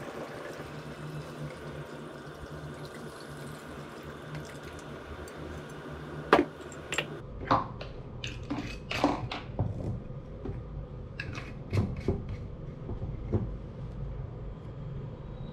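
Liquid pouring through a plastic funnel into a glass wine bottle, a steady trickle. From about six seconds in comes a run of sharp clicks and knocks as the funnel and bottle cap are handled.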